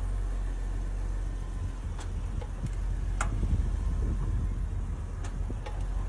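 2021 Ford Explorer ST running with a steady low engine hum, with a few sharp, irregularly spaced clicks from the rear wheel area. This is the rear clicking or popping noise that comes when the vehicle is shifted from reverse into drive.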